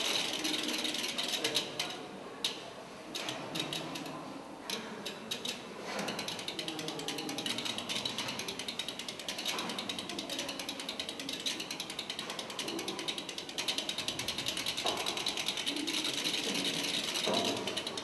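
Mechanical clicking and ratcheting from a spoked machine-like installation, irregular at first and turning into a dense, continuous rattle of fast clicks about six seconds in.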